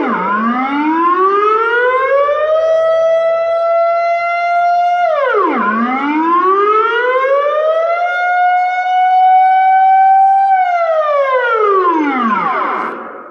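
Dutch civil-defence air-raid siren sounding the public warning signal for its routine test. Its pitch climbs, holds while creeping slowly higher, then drops sharply, about every five seconds. In the last cycle the pitch makes a long slide down and the siren dies away near the end.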